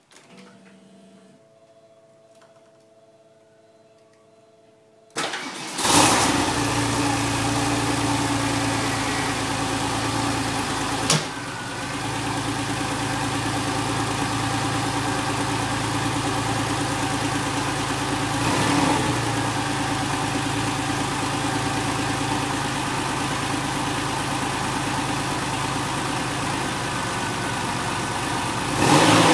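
Porsche 993 Carrera 4S's air-cooled 3.6-litre flat-six with its stock motorsound package being started: after about five seconds of a faint steady hum, the starter cranks and the engine catches with a flare of revs, then settles into a steady idle. There is a sharp click about eleven seconds in, and the revs start to rise right at the end.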